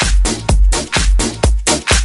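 House dance track with a steady four-on-the-floor kick drum, about two beats a second, and hi-hats between the kicks.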